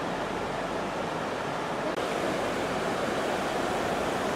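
Steady, even rushing of floodwater.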